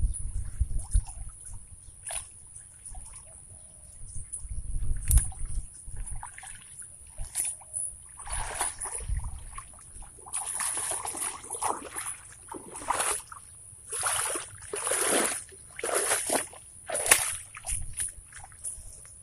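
Water sloshing and splashing in a series of swishes from about eight seconds in, over a steady high-pitched tone, with a few low thumps in the first half.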